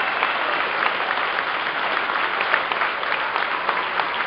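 A large audience applauding steadily, a dense wash of many overlapping hand claps, heard from within the crowd.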